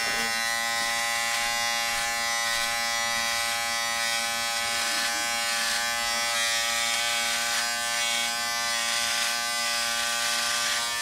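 Remington Wetech PF7580 electric shaver running with a steady, even buzz as it cuts chest hair.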